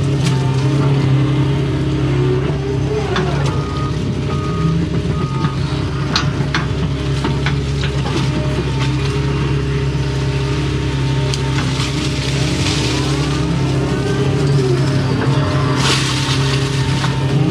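Excavator's diesel engine running steadily under load, heard from inside the cab, with the hydraulics' whine rising and falling in pitch as the machine digs and swings. Scattered short clunks from the working machine.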